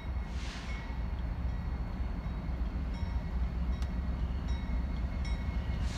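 Diesel locomotives approaching on the main line, their engines a steady low rumble that grows slowly louder.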